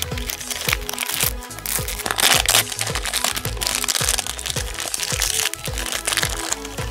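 Foil blind bag crinkling as it is torn open and the figure is pulled out, loudest about two seconds in, over background music with a steady beat.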